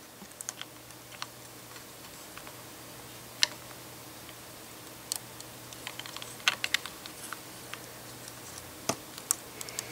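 Small plastic LEGO pieces clicking and tapping against each other as fingers fit a puppy figure into a brick doghouse: scattered light clicks, with a quick cluster of them about six to seven seconds in.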